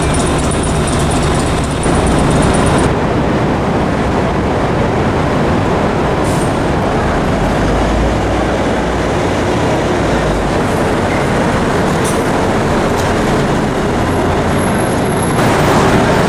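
Steady city street traffic noise: a continuous rumble and hiss of passing vehicles, a little louder near the end.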